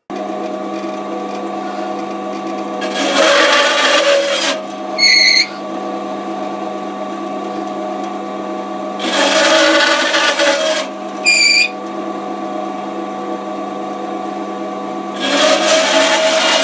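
Bandsaw running with a steady hum, cutting through a wooden dowel three times, each cut a couple of seconds of rasping. A brief high rattle follows the first two cuts.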